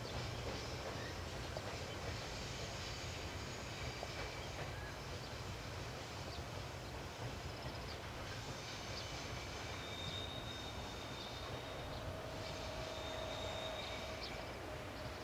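JR 381 series electric train running slowly along the track with a steady low rumble. Faint, thin high-pitched squeals come and go in the second half.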